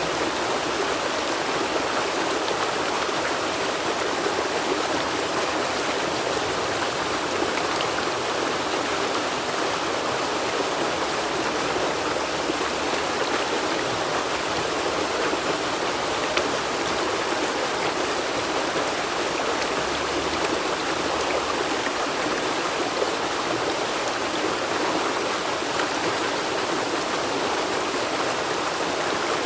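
River water flowing and rippling over stones, a steady even rush with no pauses or changes.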